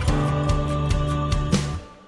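Background music with a steady beat that stops about one and a half seconds in, its last chord fading away.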